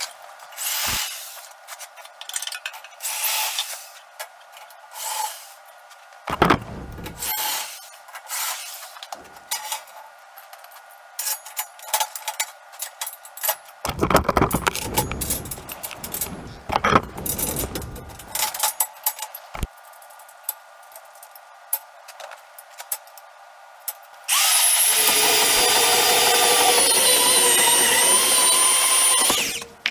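Scattered knocks, clanks and scrapes of work on a steel frame, then about 24 seconds in a portable band saw cuts through a steel bar with a loud, steady, high-pitched sound for about five seconds, stopping just before the end.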